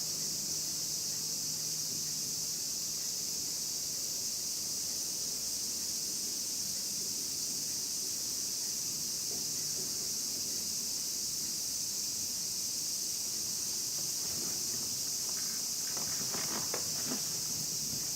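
Steady, unbroken chorus of cicadas, a high shrill hiss. A few faint knocks come near the end.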